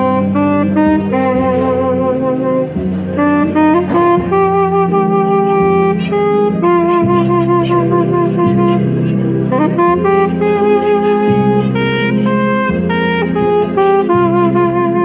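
Saxophone playing a tune in held, slightly wavering notes, over a steady low accompaniment whose chords change every second or two.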